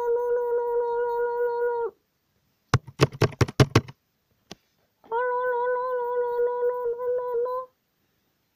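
A child's voice humming a long, nearly level note, twice, each about two to three seconds long. Between the two notes comes a quick run of about seven sharp clicks.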